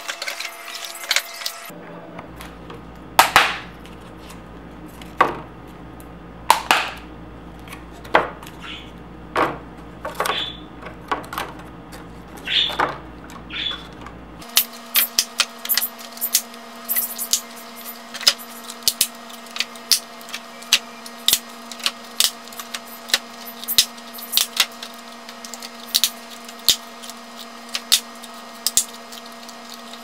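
Plastic yogurt cups being pulled apart from a multipack and set down on a wooden table and into a clear plastic bin: light clicks and knocks, spaced out at first, then quick and frequent from about halfway.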